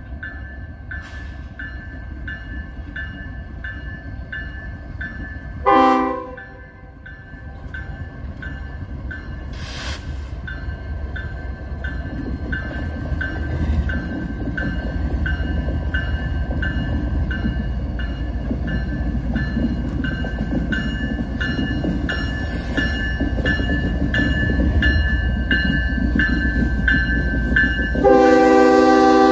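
CN ES44DC diesel locomotive approaching with a growing low rumble while a grade-crossing bell dings steadily. About six seconds in its horn gives one short blast, and near the end, as the locomotive arrives, its Nathan K5HL five-chime horn starts blowing loudly.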